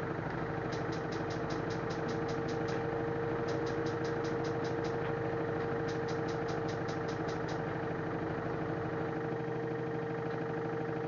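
LG F1089ND washing machine spinning, its motor running with a steady whine over a low hum. Three short runs of rapid high ticking come and go in the first few seconds.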